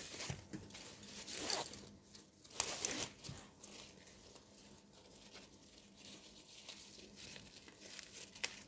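Nylon hammock fabric and webbing straps rustling and swishing as they are handled and cord is fed through them, louder in the first three seconds with a couple of sharp clicks, then fainter.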